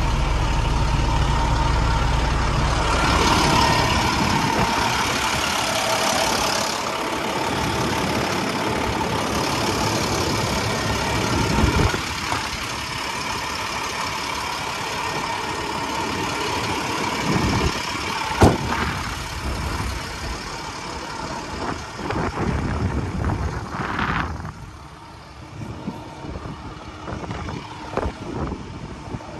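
A truck engine running at idle, with a few sharp knocks along the way; the sound drops quieter near the end.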